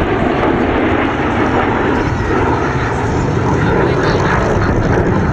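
Aircraft engine noise, loud and steady.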